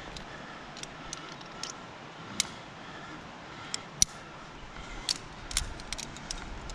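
About a dozen irregular sharp clicks and clinks of climbing gear (carabiners and quickdraws) while a climber is lowered on the rope, over a faint steady hiss.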